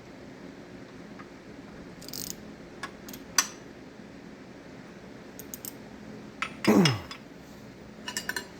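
Scattered metallic clicks and clinks of hand tools being handled on an engine block, with a loud short squeak that falls steeply in pitch about seven seconds in, then a quick run of clicks near the end.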